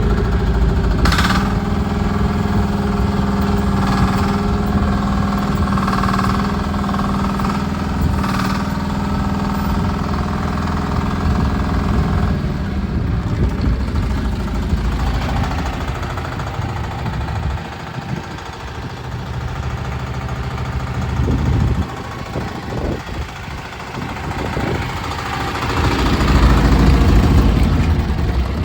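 The diesel engine of a 1-tonne mini excavator running steadily, with a few short clanks in the first ten seconds. For the second half the engine sound is rougher and keeps changing, dipping and then rising toward the end as the machine is worked and driven.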